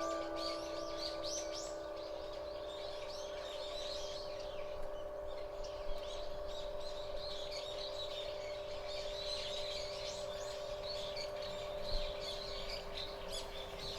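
Small birds chirping repeatedly in quick, high, rising calls, while the ringing of the last chime tones from a public-address loudspeaker dies away in the first couple of seconds.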